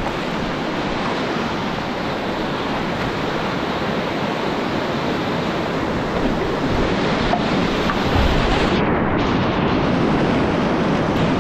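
Whitewater river rapids rushing, a steady, loud wash of water noise that grows slightly louder about halfway through.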